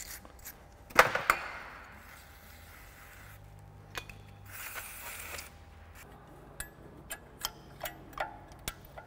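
A sharp metal clank about a second in, then a short aerosol spray hiss midway as the brake pad retaining pin and clip are sprayed. Near the end comes a run of light metal clicks as the pin and clip are fitted back into the four-piston brake caliper.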